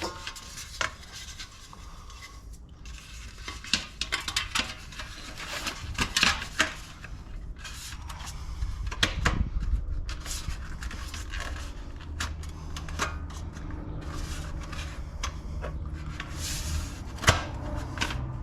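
Light aluminium hubcaps and wheel trims being handled and fitted to a steel wheel: irregular metallic clinks, taps and rubbing, with a sharp click near the end.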